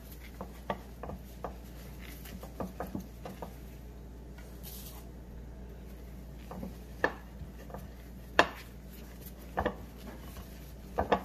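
A paper towel rubbing shortening around the inside of a glass baking dish, with a handful of sharp knocks at irregular intervals as the glass dish shifts on the granite countertop.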